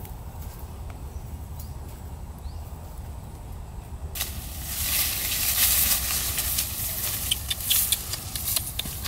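Leaves rustling and twigs crackling as someone pushes through dry undergrowth, starting suddenly about four seconds in, over a steady low rumble.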